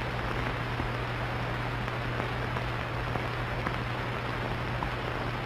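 Steady hiss with a low mains-type hum and a few faint crackles: the background noise of an old film soundtrack between narration lines.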